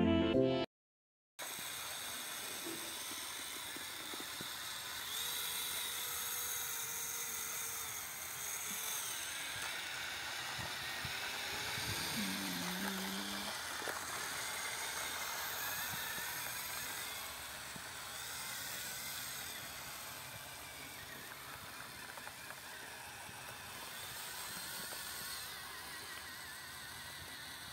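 Small electric motor of a model tractor whirring steadily, starting about a second in, as the tractor pulls a miniature seed drill through sand.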